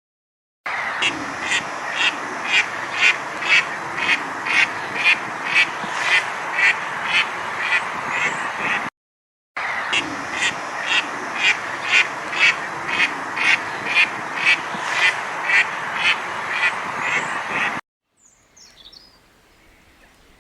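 Duck quacking in a steady run, about two quacks a second over a constant background hiss. The quacking comes in two stretches of about eight seconds each, split by a brief silence, and stops a couple of seconds before the end.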